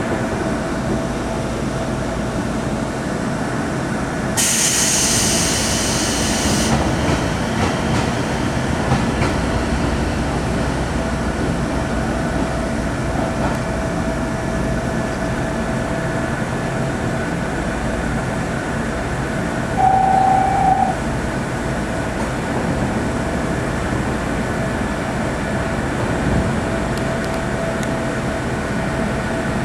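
Sangi Line electric train running, heard from inside the carriage: a steady rumble of wheels on the rails with a faint continuous whine. A hiss comes in for a couple of seconds early on, and a short one-pitched tone sounds for about a second two-thirds of the way through.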